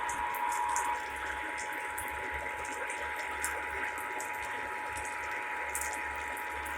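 Emergency Alert System attention signal: a steady two-tone alert tone near 1 kHz, the 853 and 960 Hz pair, held for several seconds. It plays over a hiss of broadcast static with scattered crackle.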